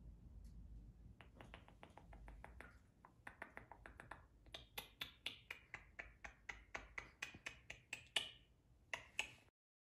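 A run of sharp, short clicks, about three to four a second, starting about a second in and getting louder from about four seconds in, with two last clicks near the end before the sound cuts off abruptly.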